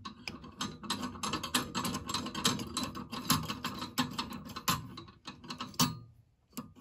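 Steel tapered collet clicking against the lathe's headstock spindle nose as it is pushed and turned into its seat by hand: a run of irregular metallic clicks, with one louder click near the end followed by a brief pause.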